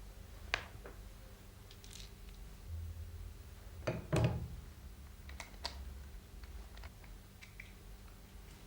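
Scattered light clicks and a louder knock about four seconds in, from a portable valve grinder and its parts being handled, over a low steady hum.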